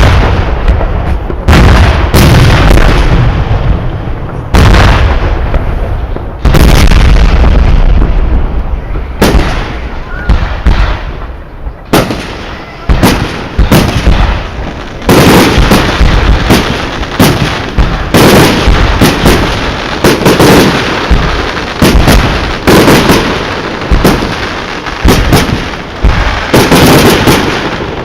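Fireworks going off: loud bangs that echo away, a few seconds apart at first, then coming thick and fast in rapid volleys from about halfway through.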